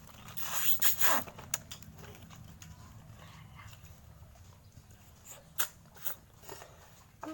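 Close-up eating sounds of ice cream: a noisy slurp about a second long near the start, then a few short wet smacks of the lips.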